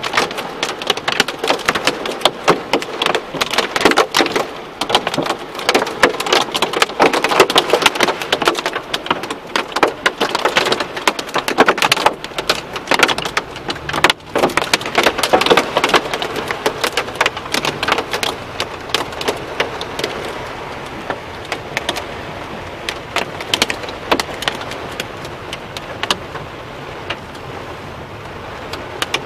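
Heavy rain and hail pelting down, a dense hiss full of sharp, loud individual impacts. After about twenty seconds the impacts thin out and it settles into a steadier, softer downpour.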